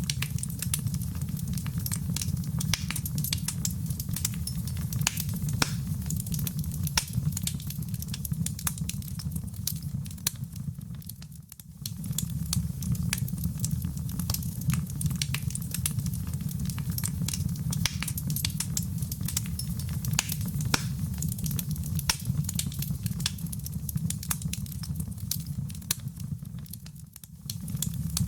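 Wood fire burning in a fireplace: a steady low rumble of flames with many small, sharp crackles and pops. The sound dips briefly twice and swells back, where the looped fire recording joins.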